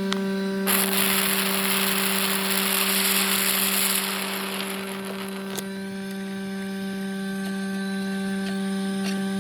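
Electric A/C vacuum pump running with a steady hum while evacuating a car's air-conditioning system. About a second in, a loud hiss of rushing air starts and lasts about three seconds.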